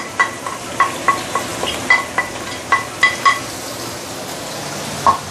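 Spatula stirring fresh herbs in hot oil in a wok: a quick run of knocks against the wok, each one ringing briefly, over a frying sizzle. About three and a half seconds in the stirring stops and the steady sizzle carries on, with one more knock near the end.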